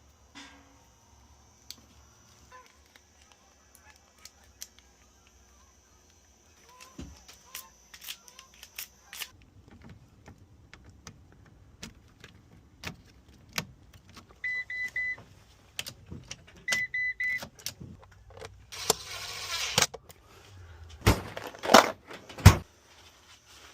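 Metal clicks and key handling on a car's rebuilt ignition lock, with two short electronic beeps around the middle, a brief hiss a few seconds later, and several loud sharp clacks near the end.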